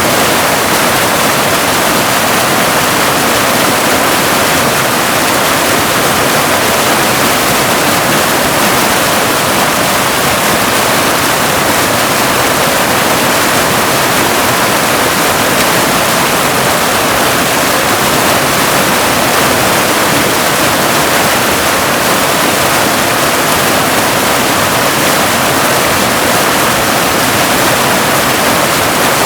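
Waterfall rushing steadily: an even, unchanging hiss of falling water, weighted toward the higher end with little low rumble.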